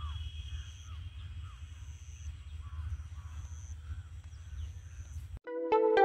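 Open-field ambience: a steady low rumble with birds calling again and again. Near the end, electronic keyboard music with evenly struck, piano-like notes starts abruptly.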